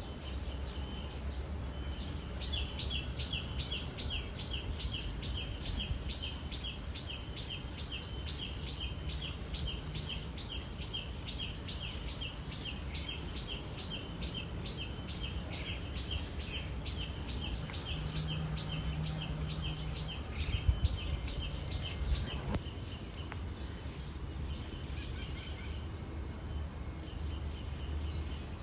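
Cicadas droning, a continuous high-pitched buzz. From a couple of seconds in until about twenty-two seconds, a second, lower-pitched call pulses about three times a second over the top.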